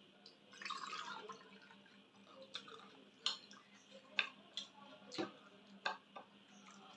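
Close eating sounds of rice and chicken curry eaten by hand: a series of sharp wet clicks and smacks, with a short squelchy rustle about a second in.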